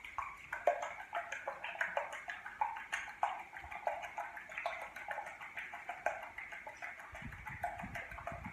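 Egg-and-milk mixture being whipped by hand with a metal utensil in a glass bowl: quick, uneven strokes, several a second, the utensil striking the glass as it beats the liquid.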